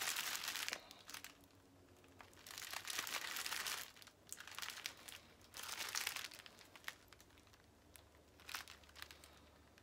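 Plastic snack bag crinkling as it is handled, in several bursts with scattered sharp crackles between them.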